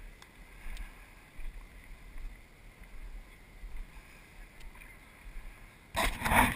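Faint wind rumble on an action camera's microphone, with a few faint ticks. About six seconds in, loud rubbing and knocking of the camera being handled.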